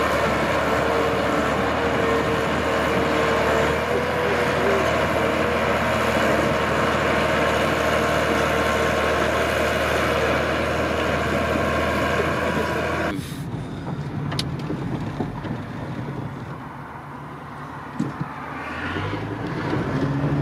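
Small crawler bulldozer's diesel engine running steadily under load as it pushes dirt. About two-thirds of the way through it cuts off abruptly, replaced by quieter car road and engine noise heard from inside the cabin.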